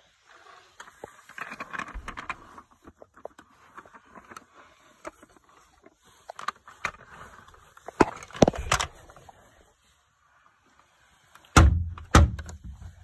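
Hard plastic toys being handled and moved on a carpet: rustling and light clicks, a few sharp plastic knocks about eight seconds in, and a heavier thump and clatter near the end.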